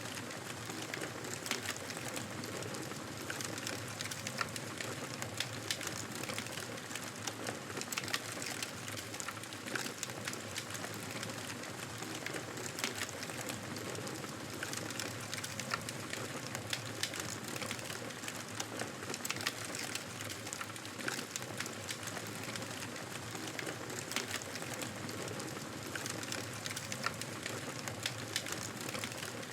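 Wood fire crackling in a fireplace: a steady hiss with many small, sharp, irregular pops.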